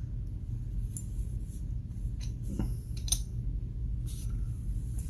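Light metallic clicks and scrapes of a two-prong case back opener working on a steel watch case back, a few scattered clicks with the sharpest about three seconds in.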